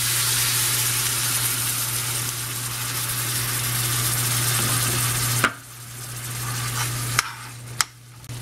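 Shrimp and vegetables sizzling in a hot steel pan as coconut milk is poured in and stirred with a metal slotted spoon. The sizzle drops off suddenly about five and a half seconds in, followed by a couple of sharp clicks of the spoon against the pan.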